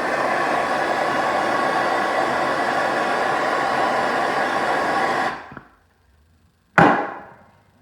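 Electric heat gun blowing steadily, shrinking a heat-shrink boot over a freshly crimped copper lug. It is switched off about five seconds in, and a sharp thump follows about a second later.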